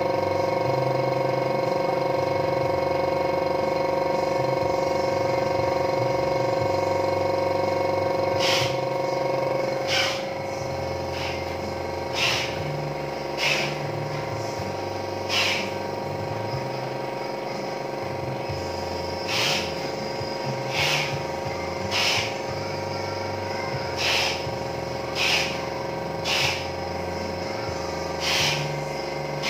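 Izumi Max OM 0724 24-litre oil-less air compressor running with a steady motor hum. From about ten seconds in it is a little quieter, and short hissing bursts come every second or two.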